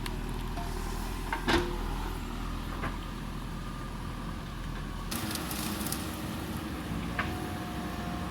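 JCB backhoe loader's diesel engine running steadily at work, with a few sharp metallic clanks, the loudest about a second and a half in. About five seconds in, a hissing, rushing noise joins the engine.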